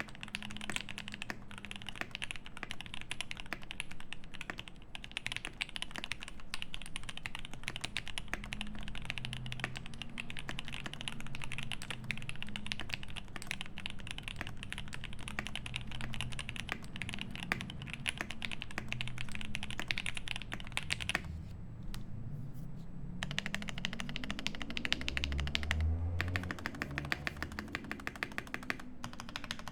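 Fast, continuous typing on a Cyberboard mechanical keyboard with lubed C3 Fierce Girl switches, an aluminium plate and GMK keycaps, the keystrokes running together into a steady patter. The typing stops briefly about two-thirds of the way through.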